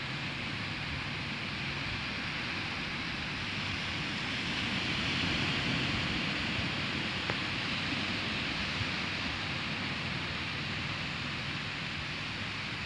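Small sea waves breaking and washing up a sandy beach: a steady rush of surf that swells about five seconds in and then eases.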